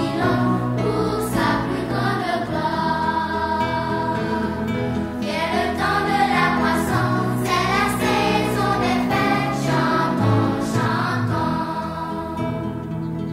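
Music: a choir of voices singing a Christian song over steady instrumental accompaniment.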